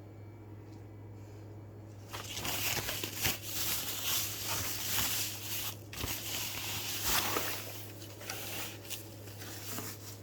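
Packaging crinkling and rustling as an item is unwrapped by hand, starting about two seconds in, with a brief pause near the middle, and dying down near the end.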